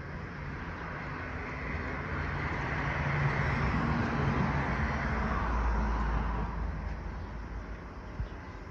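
A road vehicle passing by: engine and tyre noise that swells over a couple of seconds, is loudest in the middle, then fades away.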